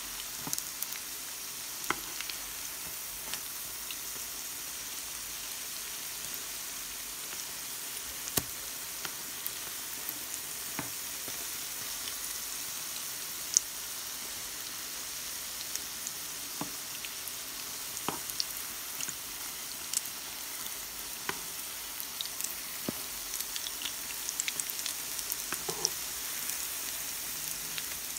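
Courgette and carrot fritters sizzling in shallow oil in a non-stick frying pan, a steady hiss with scattered sharp clicks and pops.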